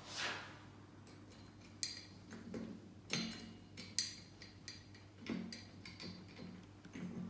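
Steel parts and tools being handled while bolting up a tube bender's jack block: a series of sharp metallic clinks and knocks with a short ringing tail, about six in all, irregularly spaced, over a low steady hum.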